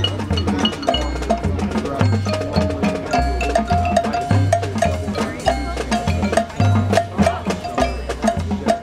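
High school marching band music: the percussion section and front ensemble playing, with mallet keyboard notes over a repeating stepped bass line and sharp drum and wood-block hits.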